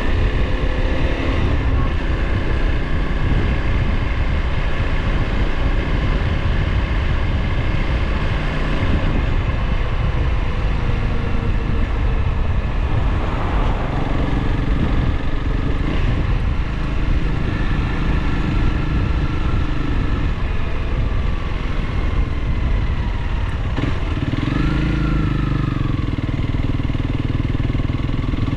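Motorcycle engine running under way on the road, its pitch shifting a few times, with a short rise and fall in revs near the end.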